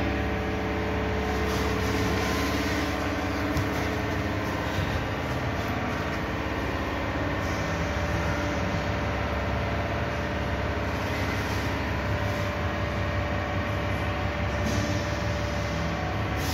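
An engine or machine running steadily at a constant speed.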